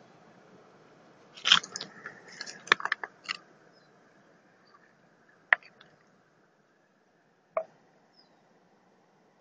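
Handling noise from a handheld camera: a cluster of sharp clicks and short scrapes in the first few seconds, then two single clicks, over a faint steady hiss.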